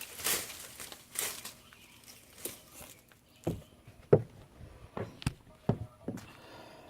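Rustling of cut azalea branches being handled, then a run of sharp cracks about halfway through, like twigs snapping; the chainsaw is not running.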